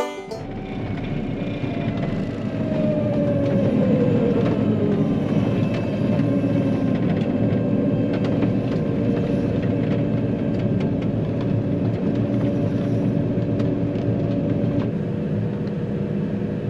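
Heavy farm vehicle running steadily on the road, a low engine drone with road rumble. A few seconds in, a tone slides down in pitch.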